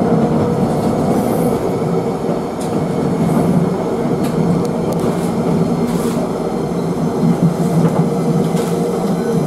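Running noise inside a moving Melbourne W-class tram: a steady hum with the rumble of the wheels on the rails, and occasional clicks and rattles.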